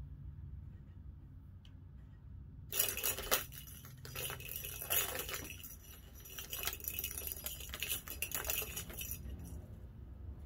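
A plastic ball rattling and clicking around the tracks of a stacked-track cat toy as a kitten bats at it: a dense clatter starting about three seconds in and stopping near the end, over a low steady hum.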